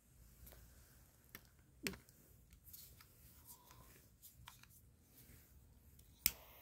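Butane jet torch lighter's trigger clicking several times as it is worked to light, a handful of sharp separate clicks with the loudest near the end.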